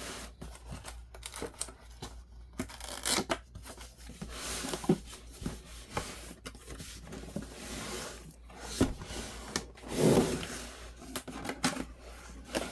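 Packaging being handled during unboxing: rustling and tearing of plastic and cardboard, with sharp clicks and knocks of parts being moved, a few louder ones scattered through.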